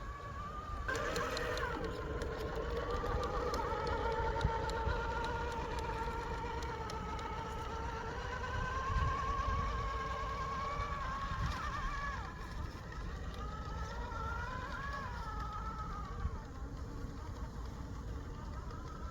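RC rock crawler's electric motor and geared drivetrain whining, the pitch rising and falling as the throttle changes while it crawls, with a burst of clicks and rattles about a second in.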